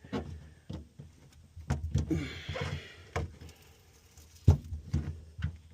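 A stubborn sound-deadening mat, held down by suction, being pried and pulled off the bare sheet-metal floor of a Honda Civic. Scattered knocks and clunks, a short rough scrape about two seconds in, and a sharp thump about four and a half seconds in.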